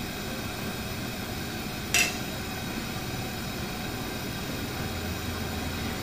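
A single sharp metallic clink of a utensil against a steel plate about two seconds in, with a short ring, over a steady quiet background. A low hum comes up near the end.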